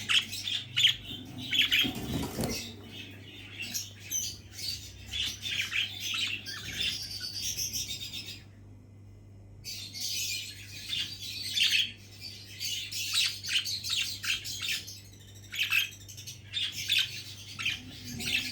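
Pet budgerigars chirping and chattering in quick, high-pitched bursts over a faint steady hum, with a brief lull a little past the middle.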